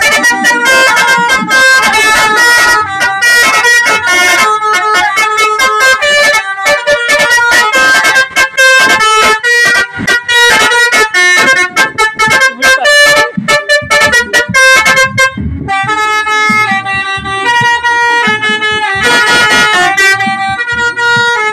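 Indonesian 'telolet' multi-tone bus air horn playing a fast tune of short notes, stepping quickly from pitch to pitch. The tune and the tone of the horn change about fifteen seconds in.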